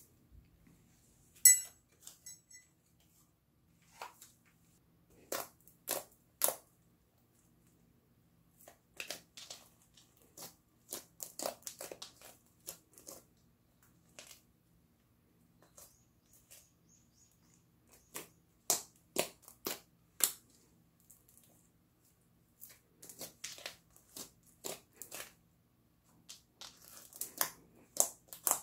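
Hands kneading, pressing and stretching soft slime, giving irregular clusters of sticky pops and clicks with short quiet gaps between. A sharp pop about a second and a half in is the loudest.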